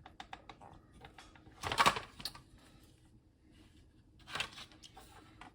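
Clicks and scraping of the ZXpand+ expansion interface being pushed onto the TS1000's rear edge connector, with a louder clatter about two seconds in and a shorter one near the end.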